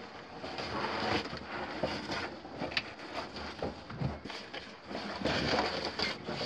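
Loose gravel and rock crunching and shifting under hands and knees as a person crawls out of a tight mine passage, with scuffing of clothing and backpack against rock, in a run of irregular crackles and scrapes.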